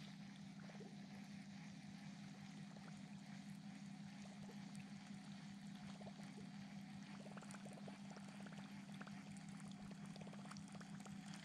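Very faint boat-on-the-water sound: a steady low hum with light water sounds, and a run of soft rapid ticks in the second half as the baitcasting reel is worked.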